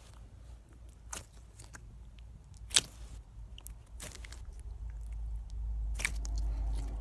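Sticky, stretchy slime being stretched and squished by hand, giving a few sharp squelching pops and crackles, the loudest about three seconds in. A low rumble rises near the end.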